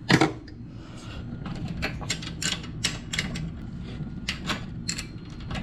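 A string of short metallic clicks and taps from hand tools loosening the valve rocker-arm adjusters on a Predator 212 Hemi engine's cylinder head, with a sharp knock at the start and about two to three clicks a second after that.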